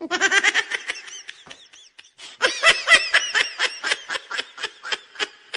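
A person laughing hard in quick repeated bursts, in two spells, the second, starting about two seconds in, louder.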